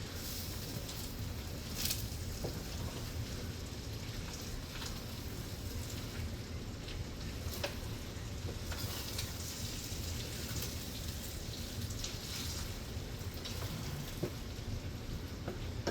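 Fried rice with egg frying in oil in a pan: a steady sizzle with scattered crackles and pops.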